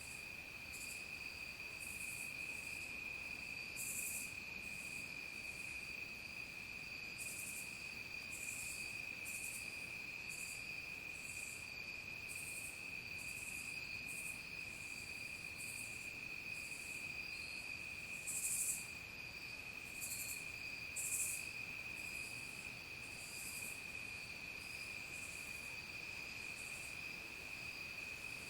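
Chorus of crickets and other insects: a steady, continuous high trill, with short raspy high-pitched calls repeating about once or twice a second, a few of them louder.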